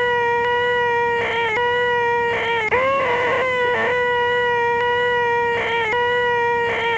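The 'most annoying sound in the world': a man's high, nasal, drawn-out 'eeeeeh' voice, held at one steady pitch and broken by a short gap about every four seconds as it repeats over and over.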